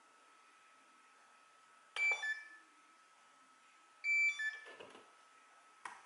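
Devention RC transmitter beeping twice, about two seconds apart: each time a button click and then a short beep that steps down in pitch, as a model is loaded on the radio. A faint steady high tone sits underneath.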